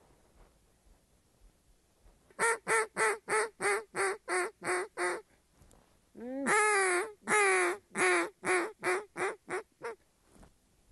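Duck quacking in a mallard-hen cadence: a run of about nine evenly spaced quacks, a short pause, then two long drawn-out quacks followed by a quicker series of shorter quacks that trails off.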